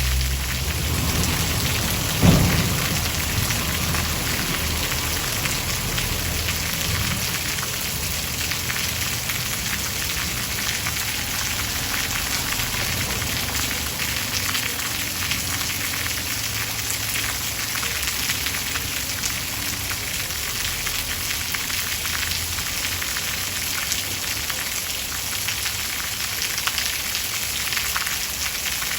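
Steady heavy rainfall, an even hiss of drops. A low thunder rumble runs under the first few seconds, with a sudden low boom about two seconds in that dies away over a second.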